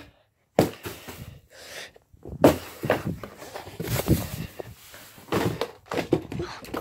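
Handling noise: a string of irregular knocks and thumps with rustling between them as things are picked up and moved about. The loudest knock comes about two and a half seconds in.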